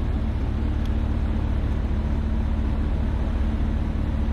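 AAON rooftop air-conditioning unit running: a steady mechanical hum from its compressors and fans, with a constant low tone.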